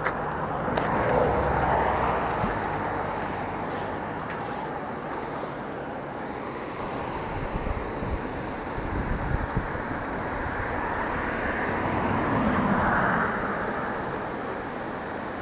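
Vehicles passing on the bridge road, their tyre noise swelling and fading about a second in and again near the end, with wind buffeting the microphone.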